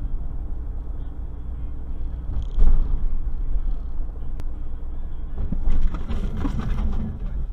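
Car driving, heard from inside the cabin through a dash cam: a steady low rumble of engine and road noise. A sudden loud noise comes a little over two seconds in, and a louder, brighter stretch of noise follows around six seconds in.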